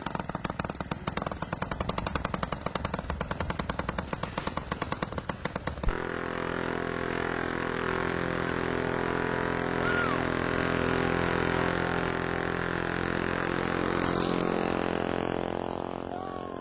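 Westbury 30cc two-stroke model aircraft engine running: a rapid popping of separate firing strokes for about six seconds, then a smoother, steadier drone that tapers off near the end.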